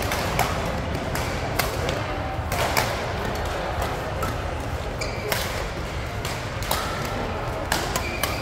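Badminton rackets striking shuttlecocks across a busy hall: sharp smacks every second or so from several courts, over a steady din of background chatter, with a few short shoe squeaks.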